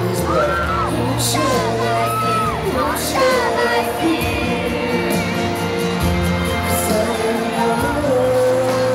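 Live pop ballad heard from the audience: male voices singing into microphones over keyboard and band backing, with crowd noise beneath.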